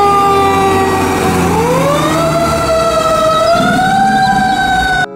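Fire engine siren wailing: its pitch slides slowly down, then about a second and a half in sweeps back up and holds with a slight waver, over a low rumble. It cuts off suddenly just before the end.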